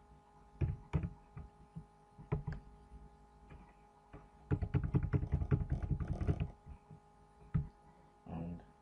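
Computer keyboard typing: a few separate keystrokes, then a fast run of keystrokes about halfway through, and a last single click near the end.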